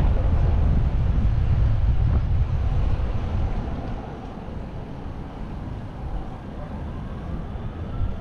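Road traffic noise: a steady low rumble of vehicle engines and tyres, loud at first and easing about halfway through. A faint rising tone comes in near the end.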